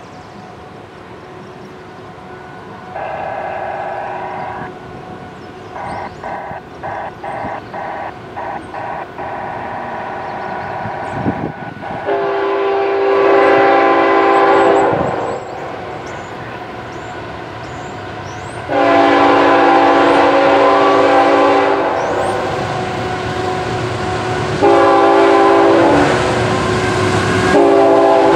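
Diesel freight locomotive's air horn sounding the grade-crossing signal as the train approaches: a long blast, a second long blast, a short one, then the start of a final long one, each louder than the one before.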